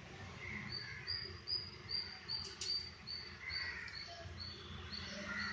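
A bird calling a short, high chirp over and over, about two and a half a second, starting just under a second in; faint, with a single click about halfway through.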